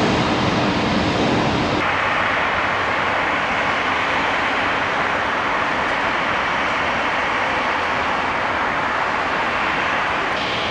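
Jet engines of taxiing airliners running at low thrust: a steady rushing hiss that changes suddenly about two seconds in, then carries on evenly.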